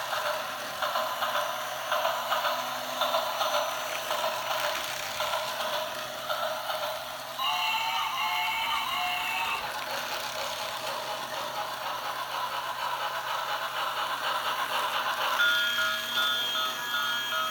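Toy steam train running with a steady rattle. About halfway through, a short warbling electronic tune plays. Near the end, a steady pulsing electronic tone starts.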